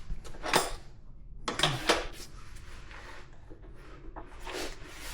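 A few sharp metallic clanks and clicks from a wrench working the rear axle nut of a KLR650 motorcycle as it is loosened.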